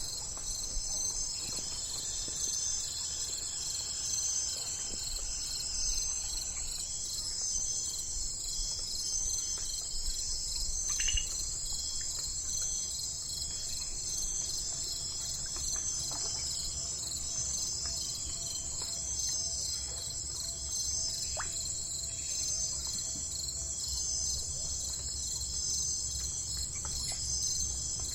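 Chorus of crickets, a steady pulsing high-pitched trill, with a few faint bird chirps and a low rumble underneath.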